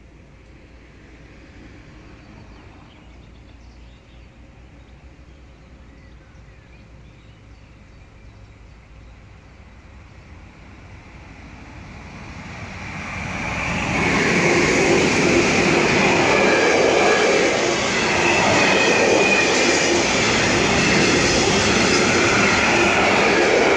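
A freight train hauled by two electric locomotives approaches, faint at first, then grows loud about halfway through and passes close by. The container and tank wagons roll by with a steady rumble and clatter of wheels on the track.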